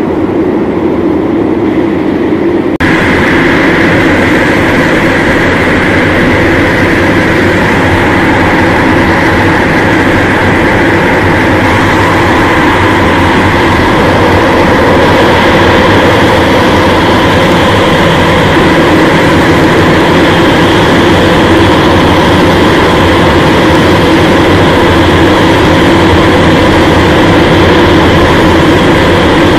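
Cartoon soundtrack smeared by heavy '4ormulator' audio effects into a loud, continuous electronic drone of many steady tones, with no words left intelligible. It turns brighter and harsher about three seconds in.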